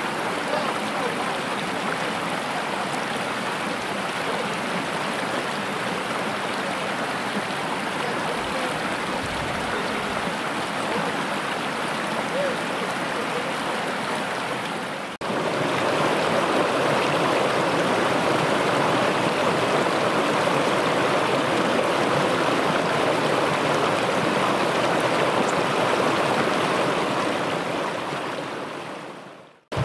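Shallow mountain stream running over stones: a steady rush of water. It jumps louder and closer about halfway through and fades out at the very end.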